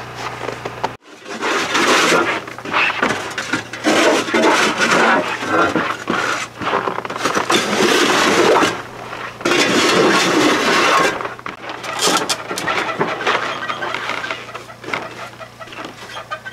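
Snow being cleared off a wooden cabin deck with a long-handled hand tool: a run of scraping strokes across the boards, lighter in the last few seconds.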